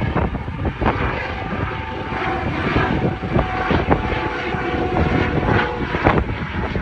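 Strong gusting wind buffeting the microphone in a rough, uneven rumble, with a faint steady engine-like drone underneath.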